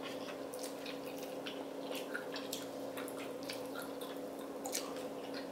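Wet chewing and slurping of chewy instant noodles (Samyang carbonara fire noodles): a run of small, irregular mouth smacks and clicks.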